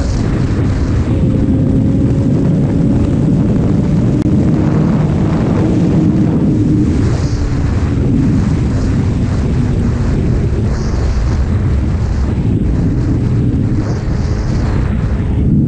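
Motorcycle engine running under way at a fairly steady engine speed, with wind rushing over the microphone.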